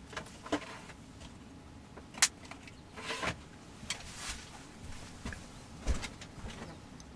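Scattered small clicks, taps and rustles of objects being handled and picked up on a workbench, about half a dozen sharp clicks with the loudest about 2 s and 6 s in.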